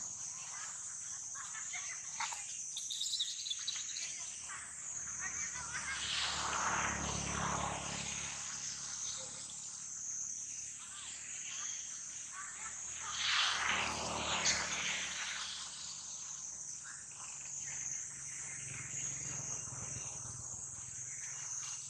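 Steady, high-pitched chorus of insects in the forest canopy, with two swells of rustling foliage, about six and thirteen seconds in.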